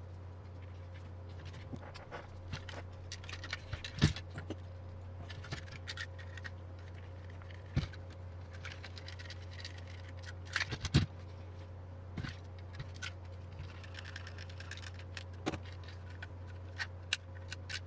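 Small plastic kit parts and screws being handled and fitted by hand: scattered light clicks, scrapes and rustles, with two sharper knocks about four and eleven seconds in, over a steady low hum.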